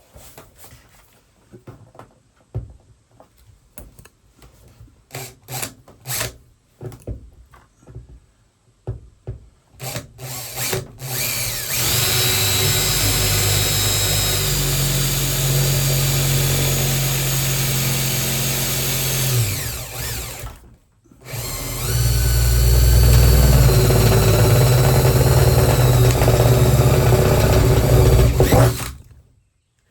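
Electric drill boring a 3/8-inch hole for a threaded nut insert: a few scattered knocks at first, then two steady runs of about eight seconds each with a short pause between, the first winding down in pitch as it stops.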